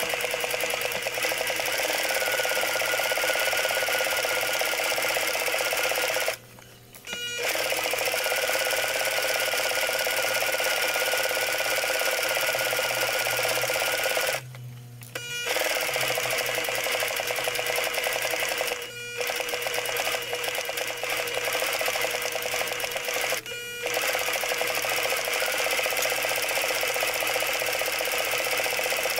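Singer Heavy Duty sewing machine running at a steady stitching speed through layers of fabric. It stops briefly four times, then starts again each time.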